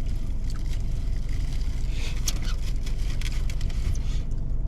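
Steady low rumble with scattered light clicks and scrapes of takeout containers and cutlery, most of them about two to four seconds in.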